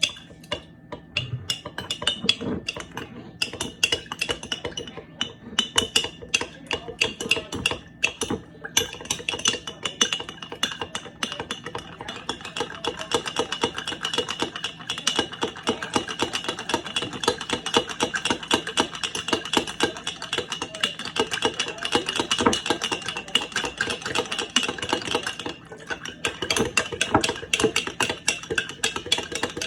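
Rapid, continuous clicking and clinking of kitchen utensils against a dish, with a short lull near the end.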